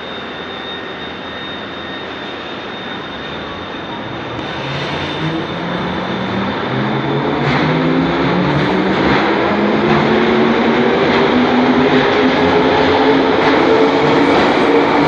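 London Underground 1972 Stock train running along the platform, its wheels rumbling on the rails and its traction motors whining steadily higher in pitch. It grows louder as it goes, with faint clicks of wheels over rail joints in the later part.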